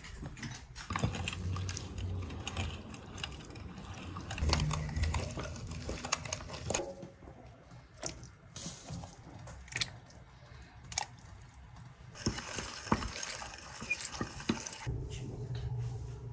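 Hand-cranked meat grinder mincing meat together with soaked chickpeas: the crank and metal workings clicking and rattling irregularly.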